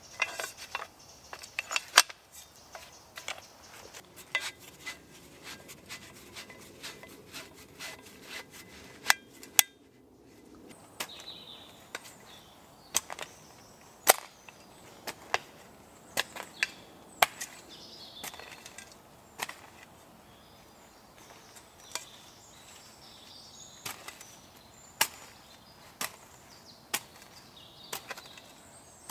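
Folding shovel chopping into soil and roots: a long series of sharp strikes, irregular, roughly one a second.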